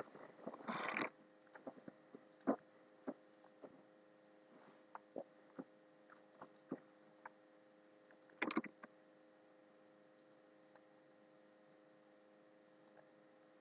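Scattered computer keyboard keystrokes and mouse clicks over a faint steady electrical hum. The clicks come in small clusters and thin out to a few lone clicks after about nine seconds.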